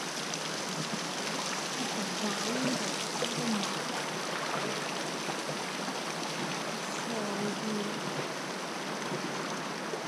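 Fast river water rushing steadily around a raft, an even noise with no break, with faint voices about two seconds in and again near eight seconds.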